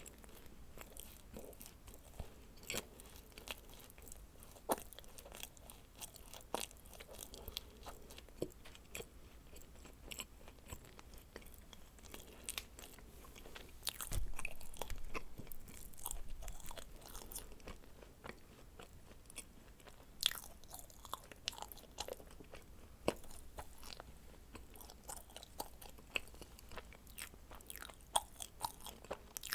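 Close-miked chewing and biting of dacquoise, soft meringue-and-cream cookies, with many small crisp clicks and crunches throughout and a louder, fuller stretch of chewing about halfway through.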